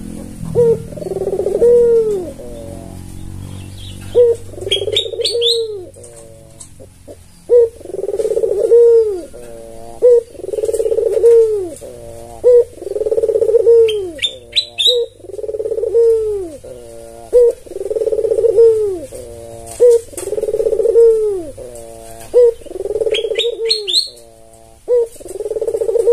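White albino puter dove (Barbary dove) giving its rolling coo over and over, one call about every two seconds, each a rising-and-falling coo trailing into a short run of quick notes. Brief high chirps from another bird come in three times.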